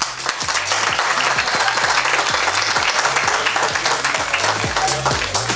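Audience applauding, with background music with a steady bass beat underneath that grows stronger near the end.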